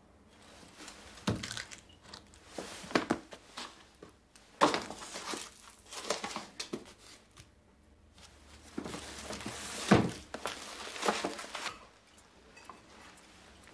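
Irregular rustling of paper and a few light thuds from things being handled, with the loudest burst just before ten seconds in.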